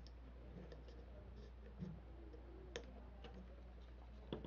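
A few faint clicks of a piece of steel music wire being worked into a tight pinhole in the bottom of an aluminium pop can, over a low steady hum.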